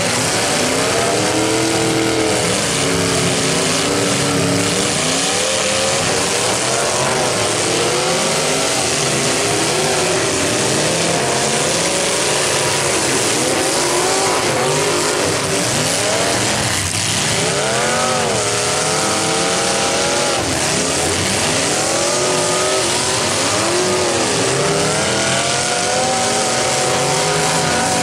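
Several demolition derby car engines revving up and down at once, their pitches rising and falling over each other as the cars shove and ram in the dirt arena, loud and continuous.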